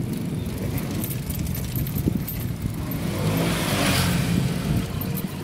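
Motor vehicle engine running steadily, heard from inside the passenger compartment, with road noise swelling and fading again about three to four seconds in.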